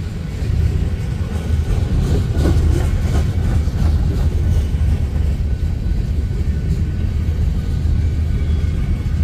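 Empty coal gondolas rolling past on the rails: a steady low rumble of steel wheels on track, with a spell of clattering about two to three seconds in.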